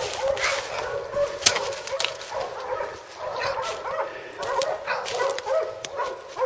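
Hunting dogs baying a hog: a steady run of repeated barks and yelps, the sign of the dogs holding the hog at bay. A sharp click about a second and a half in.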